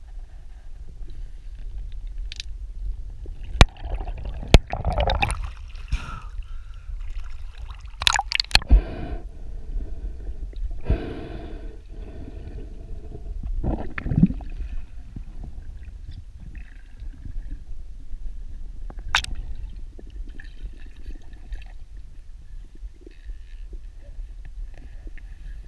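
Underwater sound picked up by a diver's camera: a steady low rumble of moving water, several sharp clicks and a few louder gurgling swishes in the first half.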